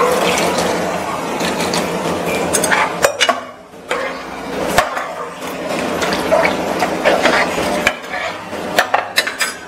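Water poured into a metal pressure cooker full of cooking vegetables, splashing for about three seconds. Then a steel ladle stirs the mixture, clinking and scraping against the pot, with a cluster of sharp knocks near the end.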